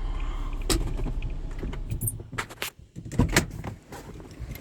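A car's engine running at low speed as it pulls in, then dropping away about three seconds in, with several sharp clicks and knocks around it.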